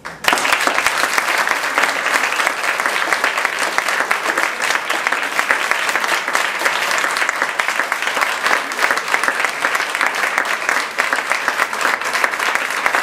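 Audience applauding, breaking out all at once and keeping up a steady, dense clapping.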